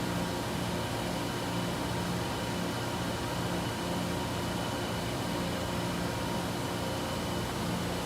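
Froriep 393" CNC vertical boring mill running: a steady mechanical hum with faint whine tones over a hiss, and a low tone that swells and fades roughly once a second.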